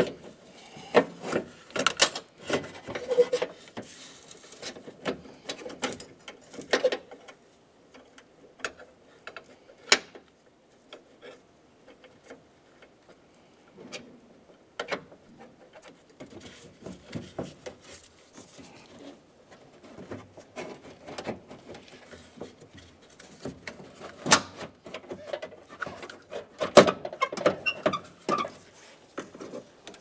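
Door latch assembly and window channel being worked into place inside a Ford F-150's door by a gloved hand: irregular clicks, knocks and rubbing of metal and plastic parts, with a few louder knocks, the loudest near the end.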